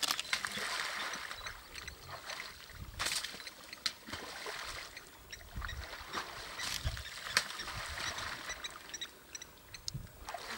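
African elephant bull wading in a shallow waterhole, water sloshing and splashing around its legs and trunk, with several sharp splashes among the trickling.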